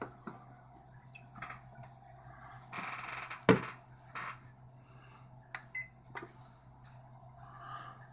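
Scattered plastic clicks and knocks as an APC Back-UPS ES 350 is handled and plugged in, with a brief rustle about three seconds in and a sharp knock just after it, the loudest sound. A low steady hum runs underneath.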